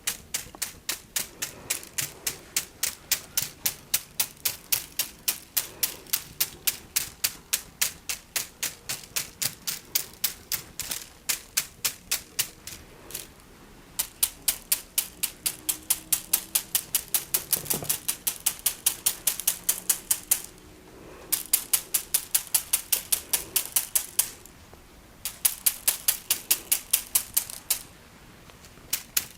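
Rapid, even clicking taps of natural plant-stem rods used as a massage tool, about three to four clicks a second, stopping briefly a few times.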